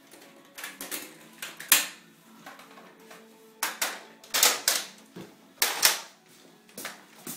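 Nerf foam-dart blasters being handled, primed and fired: a series of sharp plastic clacks and snaps, the loudest coming in quick pairs a fraction of a second apart. Faint music plays underneath.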